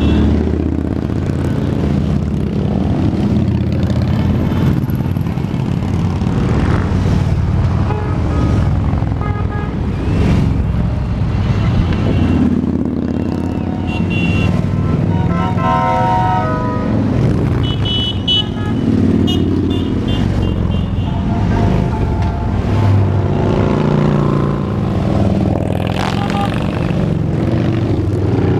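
Parade of touring and cruiser motorcycles riding past one after another at low speed, their engines rumbling steadily, with a few horn toots around the middle.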